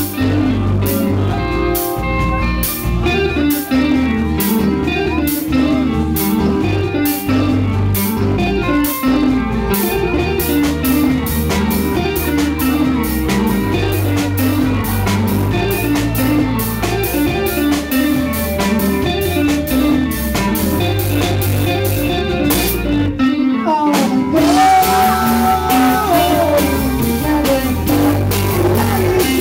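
Live band playing with amplified electric guitar, bass guitar and drum kit, a repeating guitar riff over a steady beat. The band drops out briefly about three-quarters of the way through, then a sliding melodic line comes in over the band near the end.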